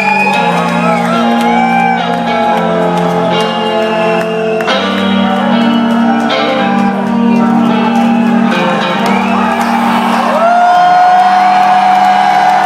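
A melodic death metal band playing live in a hall: distorted guitars and drums with shouted vocals, and a long held note coming in about ten seconds in.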